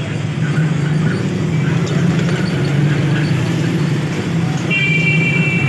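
Steady low rumble of a running motor-vehicle engine, with a brief high tone near the end.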